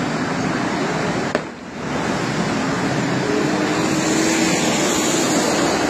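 Steady rushing roar of a formation of Pakistan Air Force jets flying overhead, with a click and a brief drop in level about a second and a half in.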